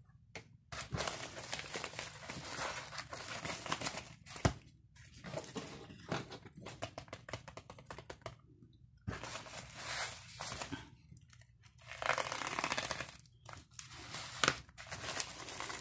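Black plastic bubble mailer being handled and opened by hand: crinkling and rustling of the plastic in irregular bursts with short pauses, with one sharp tap about four and a half seconds in.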